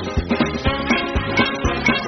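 Upbeat recorded music with a bouncy beat, the bass hitting about twice a second.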